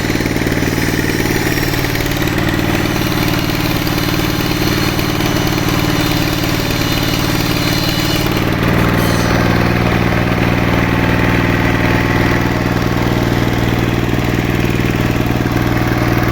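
Sawmill machinery running: a steady engine drone that grows slightly louder about eight and a half seconds in.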